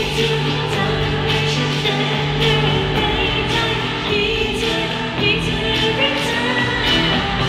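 Live pop song played over the stage sound system, with singing into microphones.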